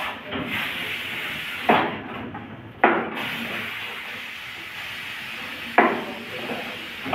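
Chef's knife cutting cauliflower and knocking on a plastic cutting board: three sharp chops, spaced a second or more apart. A steady hiss runs underneath.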